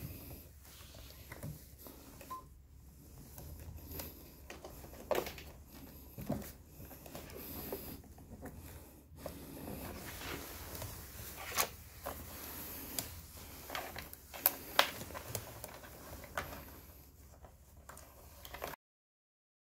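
Scattered small clicks and rustles of wires and plastic connectors being handled and plugged together in a scooter's wiring harness, over a faint low hum. The sound cuts off abruptly near the end.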